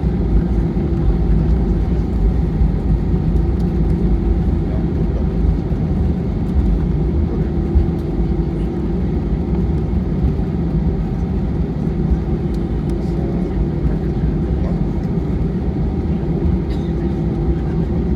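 Steady cabin drone of an Airbus A320, its engines and airflow giving a low, even rumble with a constant hum.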